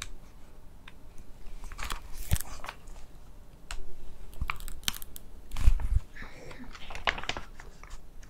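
Close-miked paper pages of a small hardcover notebook being flipped and rustled, with irregular crisp flicks and taps. There is one louder soft thump a little past the middle.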